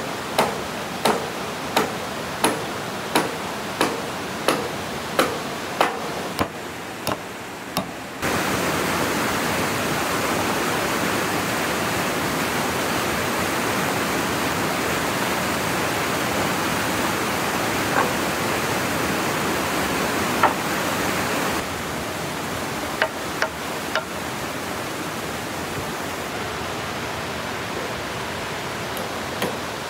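Sharp, even knocks of a tool striking wood, about three every two seconds, for the first eight seconds. Then a steady rushing noise, with a few single knocks.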